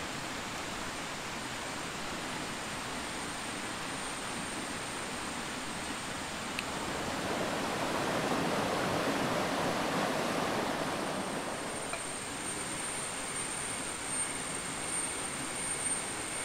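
Rushing water of a shallow rocky forest stream, a steady hiss that swells for a few seconds in the middle. A thin high steady tone joins in during the later part.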